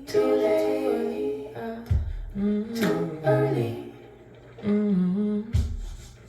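Song playback through a three-way multi-amped tube hi-fi (single-ended 2SK135 on the treble, single-ended 2A3 on the mids, push-pull 6550 on the bass), recorded on a phone: layered wordless female vocals humming, with a few sharp snaps and two deep bass thumps.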